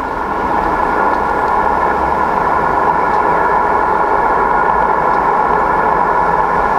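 Steady hiss of HF band noise from a Yaesu FTDX-1200 transceiver's speaker in upper-sideband mode, with a few faint steady tones in it, as the main tuning dial is turned across the 20 m band from 14.180 toward 14.270 MHz with no station heard.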